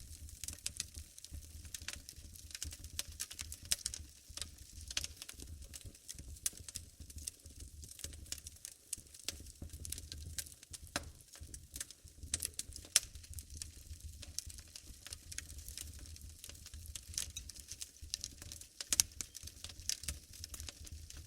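Wood fire burning in a fireplace, crackling with many irregular sharp pops and snaps over a low rumble of the flames.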